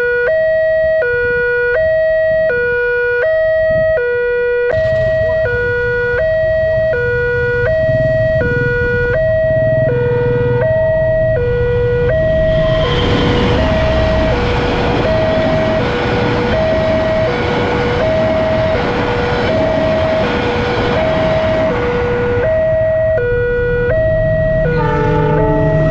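Railway level-crossing warning alarm from the loudspeaker on the signal post: an electronic two-tone chime swapping between a higher and a lower note every half second, sounding while the barrier is down for an approaching train. A broad rushing noise swells under it from about 13 seconds in and fades about 22 seconds in.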